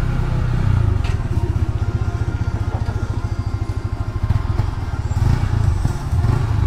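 A motorcycle engine running close by, a steady low rumble that swells and dips.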